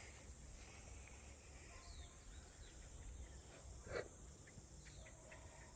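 Faint outdoor ambience: a steady high chirring of insects, with a few faint bird chirps about two seconds in and one brief louder sound about four seconds in.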